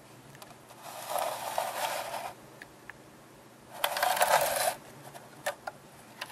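A plastic 1:35 StuG III model tank slid and turned by hand across a paper-covered work table. There are two scraping rubs, the first about a second and a half long and the second under a second, with a few light clicks between them.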